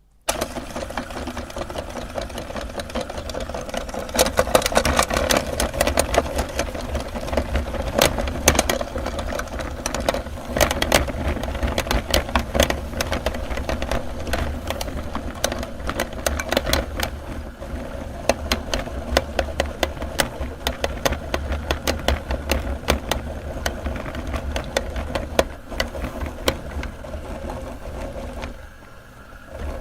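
Electric meat grinder switching on and running with a steady motor hum, crushing soap with dense crackling and clicking. The grinding stops about a second before the end.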